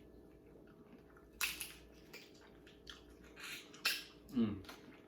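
Close-miked eating of king crab: a few short wet crunches and smacks, about a second and a half in and again near the end, then a short "mm" falling in pitch.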